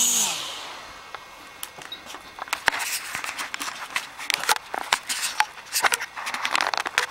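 Quadcopter's motors and propellers spinning down, their hum falling in pitch and dying away within the first second. Then come irregular sharp clicks, knocks and rustling, the loudest of them about three seconds in.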